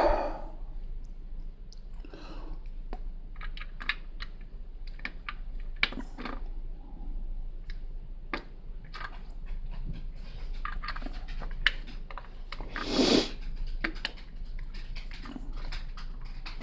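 Plastic Lego pieces being handled and pressed together: irregular small clicks and clatters, with a louder rustling burst about 13 seconds in.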